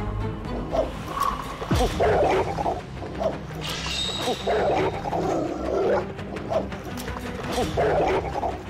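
A dog barking aggressively in repeated loud bursts at a person who is approaching it, over tense background music.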